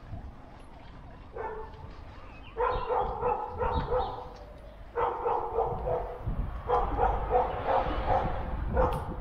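Bicycle jolting over cobblestones: a steady low rumble, with a pitched squeaking rattle that comes in bursts of a second or two, starting about one and a half seconds in.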